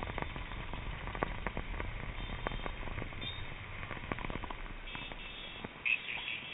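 Riding noise on a hand-held action camcorder's microphone while riding a scooter: a low wind rumble with many sharp crackles and clicks from handling. The rumble drops away about five seconds in, and short high tones sound near the end.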